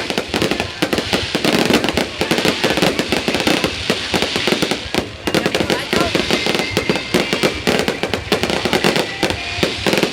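Fireworks going off in quick succession: a dense, continuous run of bangs and crackles, with crowd voices underneath.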